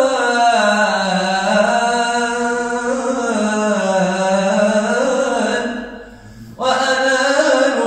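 A man singing an unaccompanied Arabic mawwal: long, ornamented held notes that wind up and down in pitch. The singing breaks off for a breath about six seconds in, then resumes.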